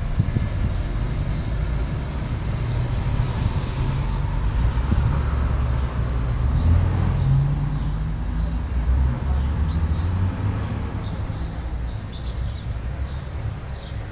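Street ambience: a low, uneven rumble of road traffic, with a few short high chirps in the second half.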